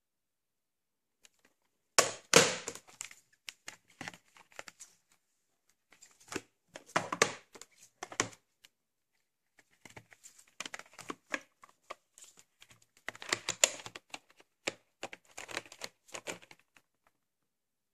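Handling of VHS tape packaging: plastic crinkling and crackling with sharp clicks, in irregular clusters with short pauses between them. The loudest burst comes about two seconds in.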